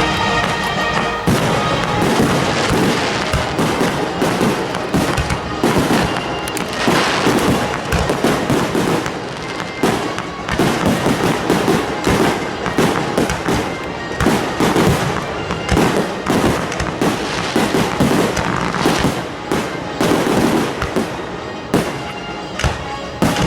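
Fireworks going off in quick succession, a dense run of bangs and crackles with no pause.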